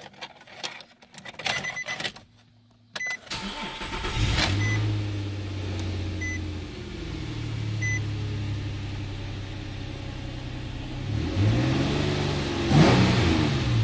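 A 2006 Nissan Xterra's 4.0-liter V6 is started: a few clicks, then it cranks and catches about three seconds in. It settles to a fast idle while a dashboard chime beeps about every second and a half. Near the end the engine is revved up and back down twice.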